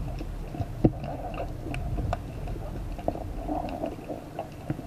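Underwater ambience heard through a camera housing: scattered crackling clicks over a low, muffled rumble, with one sharper click about a second in.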